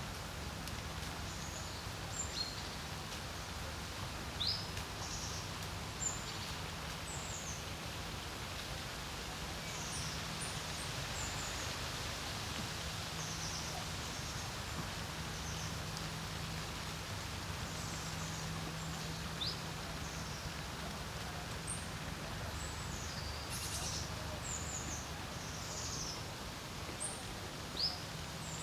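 Wind blowing steadily across a lake, with many short, high bird chirps scattered throughout and a faint low hum underneath.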